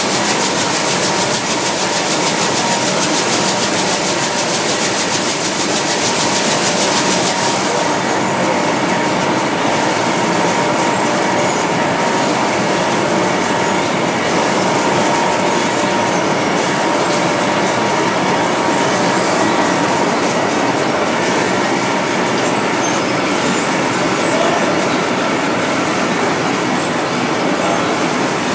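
Talay TSKF-7000 nut roasting machine running: a loud, continuous mechanical rattle with a fast, even clatter and a steady hum. About seven seconds in the hiss and the fast clatter drop away, and it runs on more evenly.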